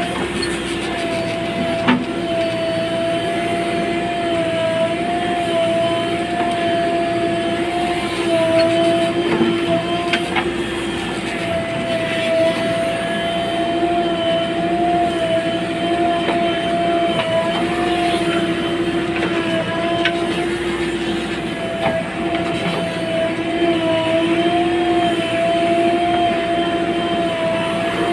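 JCB 3DX backhoe loader's diesel engine running under work, a steady droning whine that wavers slightly in pitch as the backhoe arm moves, with a few short knocks.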